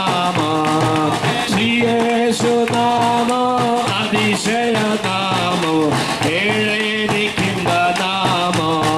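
A group of men singing a Malayalam Christian hymn together, with an R.K. Vadera's bass drum struck with a padded mallet and a metal-shelled snare drum played with a stick, keeping a steady beat.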